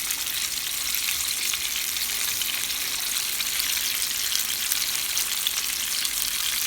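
Cornstarch-coated chicken legs deep-frying in hot oil: a steady sizzle with a dense crackle of small pops.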